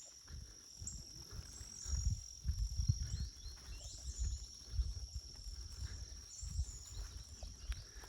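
Footsteps of a person walking outdoors, irregular low thuds, under a steady high-pitched insect drone with short chirps.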